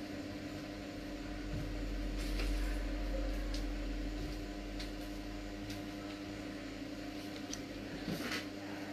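Steady low machine hum in a small room, with a deeper rumble swelling and fading through the middle and a few faint light clicks.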